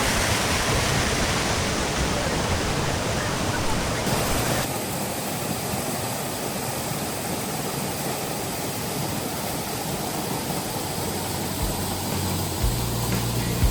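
Steady rush of falling water from a waterfall or stream. About four and a half seconds in it changes abruptly to a duller, quieter rush, and near the end a low steady tone comes in.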